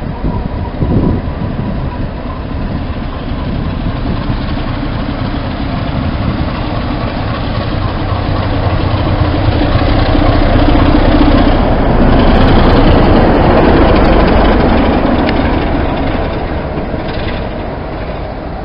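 BR Class 33 diesel locomotive with its Sulzer eight-cylinder engine approaching and passing close by with a train of coaches. The engine drone and the wheels on the rails build up, are loudest about ten to fourteen seconds in, then fade as it goes by.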